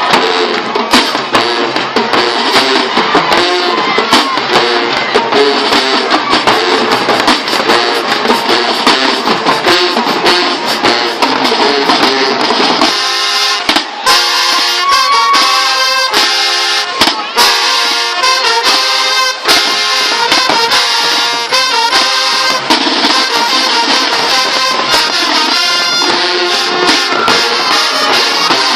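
Marching band playing loudly, brass horns over drums. About halfway through the low bass falls away, leaving the higher horns and drum hits.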